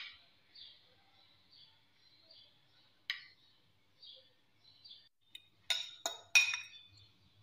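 Cutlery clinking against dishes as ketchup is spooned from a glass bowl: one light clink about three seconds in, then three ringing clinks in quick succession near the end.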